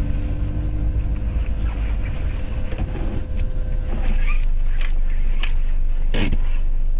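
Car interior noise recorded by a dashcam: a steady low engine and road rumble that gets a little louder about four seconds in. A few short sharp clicks or knocks come near the end.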